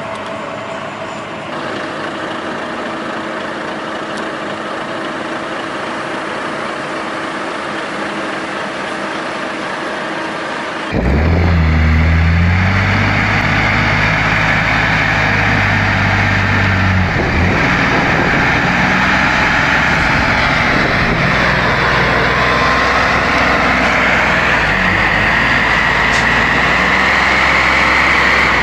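A loaded logging truck's diesel engine running steadily. About eleven seconds in, the sound switches abruptly to a louder old MAN diesel truck working hard as it pulls through deep mud: a heavy low engine drone with a higher noise that grows toward the end.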